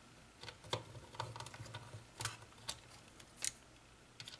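Faint, scattered light clicks and taps, about seven spread over four seconds, from small parts of a hand mixer's plastic housing and a hand tool being handled during disassembly.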